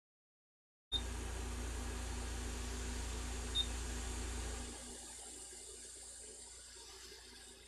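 About a second of dead silence, then a steady electrical hum with a fan-like hiss from workbench equipment, which drops in level about five seconds in.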